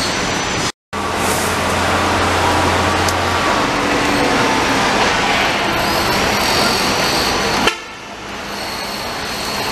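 Steady construction-site din of machinery and activity. A silent break about a second in is followed by a low hum lasting a couple of seconds, and the din drops in level suddenly after a click near the end.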